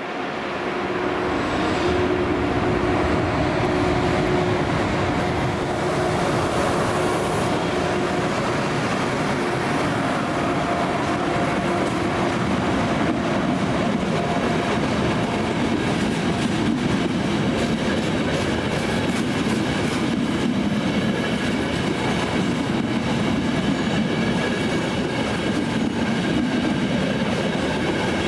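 A Trenitalia Intercity passenger train's coaches rolling past at speed: a steady rumble of steel wheels on the rails with faint clickety-clack. It swells in the first second or two, then holds.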